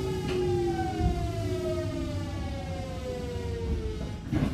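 Hitachi GTO-VVVF inverter and traction motors of a Kintetsu 1220 series electric train, heard from inside the car over the rumble of the wheels. Several whining tones fall steadily in pitch as the train slows. Near the end the whine dies away and a short burst of noise follows.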